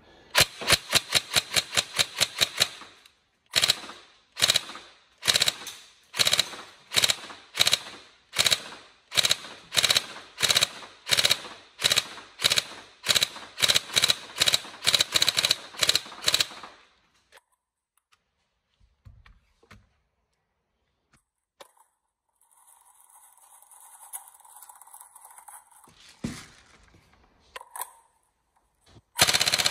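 Upgraded Tokyo Marui 416 NGRS airsoft electric rifle firing. A quick string of about a dozen shots comes first, then single shots about two a second until about 17 s in, the gearbox cycling without jamming. Then the firing stops, with a few faint clicks, and a loud steady sound starts near the end.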